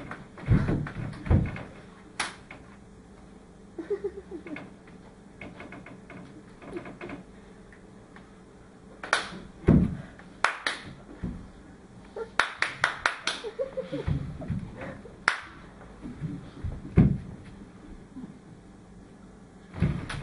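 Scattered sharp claps, slaps and knocks from hands and bare feet on a stage, with a quick run of about eight taps a little past the middle.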